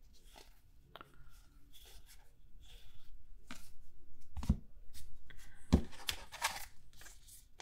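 Baseball trading cards being handled: light clicks and scrapes of cards sliding against each other, then rustling and handling noise as a pack is taken from the hobby box, with a couple of soft thumps in the second half.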